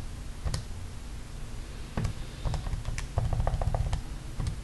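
Keys of a TI-84 graphing calculator being pressed to work out a term of the sum: a few scattered light plastic clicks, then a quick run of presses in the second half.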